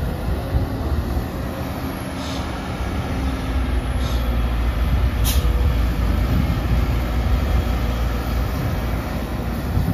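Komatsu PC200CE-10M0 hydraulic excavator's diesel engine running steadily under load, getting louder about halfway through as it works harder. Three brief high-pitched sounds come over it about two, four and five seconds in.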